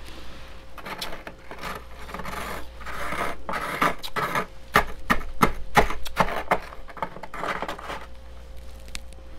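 Metal spoon scraping and scooping thick, powdery freezer frost: a run of rough, crunchy rasping strokes, with a cluster of sharp, crisp crunches near the middle as the loudest part.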